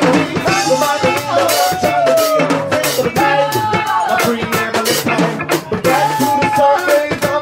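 Voices singing together into microphones, holding long, sliding notes over a steady percussive beat from a human beatboxer.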